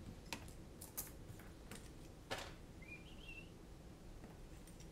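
Faint, scattered clicks of small screws and carbon-fibre frame parts being handled on a silicone work mat, with a short high chirp about three seconds in.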